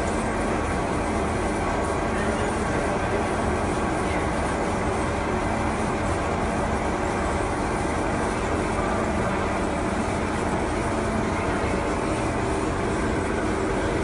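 Steady machinery noise of a tin ore processing plant: a wet drum magnetic separator and the plant equipment around it running continuously, an even rumble with a faint steady hum through it.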